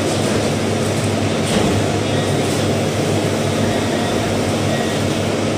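Cold-room refrigeration fans and plant running with a steady rushing noise and a low, even hum.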